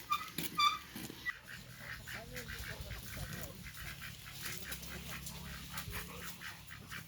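A farm bird honking twice in quick succession, two short calls about half a second apart near the start. After them comes a low rumble with a run of light clicks.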